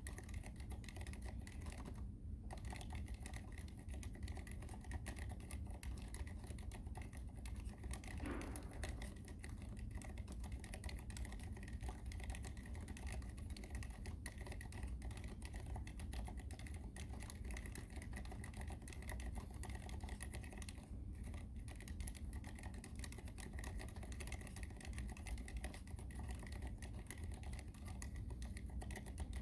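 Steady, fast typing on an ABKO AR87 full-aluminium mechanical keyboard with unlubricated Cherry MX Silent Red switches, with brief pauses about two seconds in and again about twenty seconds in.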